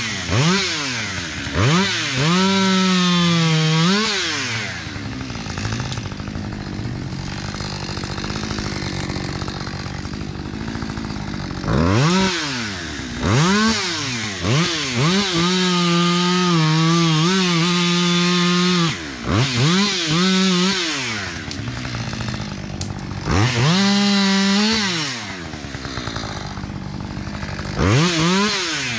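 Two-stroke chainsaw revved to full throttle in several spells of a few seconds, the longest about seven seconds, dropping back to idle between them while cutting up the branches of a felled tree.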